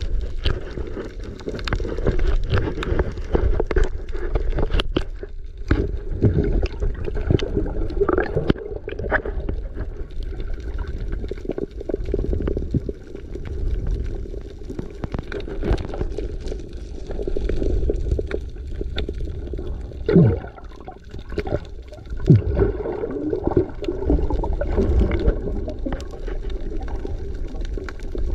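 Water gurgling and sloshing, muffled and low, with scattered knocks.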